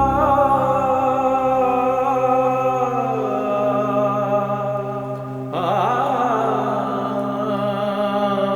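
Film score: a sustained, slow musical passage with a wavering sung or singing-like melody over held chords, changing abruptly about five and a half seconds in to a new phrase.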